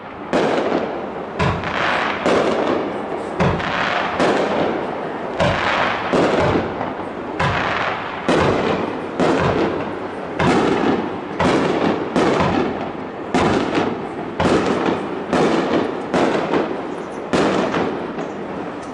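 Aerial fireworks going off in quick succession: a sharp bang roughly every second, each trailing into a rolling, noisy wash that overlaps the next.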